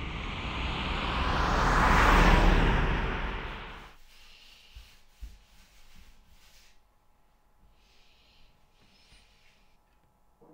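A broad rushing whoosh swells over about two seconds and dies away, cut off abruptly about four seconds in. Faint short soft hisses follow.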